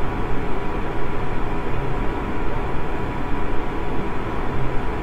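Steady rumbling background noise with a faint hum and no speech.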